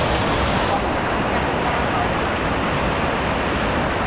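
Steady rushing noise with a deep rumble underneath; the highest part of the hiss drops away about a second in.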